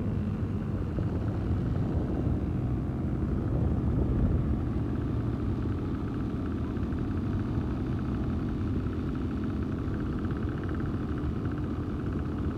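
Steady low rumble of wind buffeting the microphone, with quad-bike (ATV) engines running.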